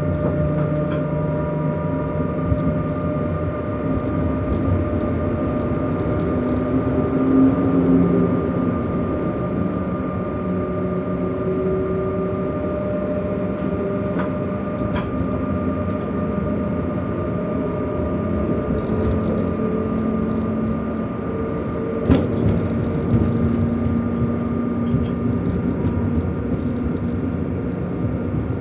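ÖBB class 1116 Taurus electric locomotive running, heard from inside its driver's cab: a steady rumble of wheels on rail under an electric whine whose tones slowly shift in pitch. A few sharp clicks come through, the loudest about 22 seconds in.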